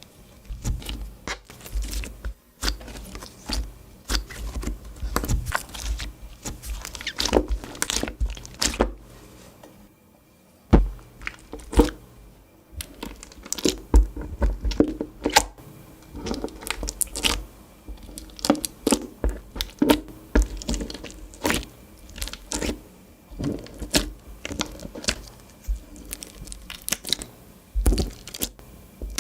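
Clear slime being squeezed, stretched and folded by hand, giving many short, irregular sticky clicks and crackles, with a brief pause about ten seconds in.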